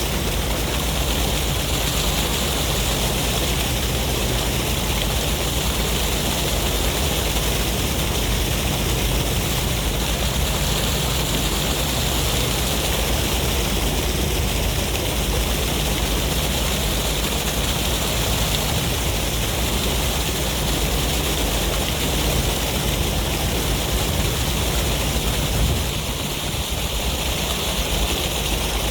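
Sea waves and wind making a steady, unbroken rush, easing slightly near the end.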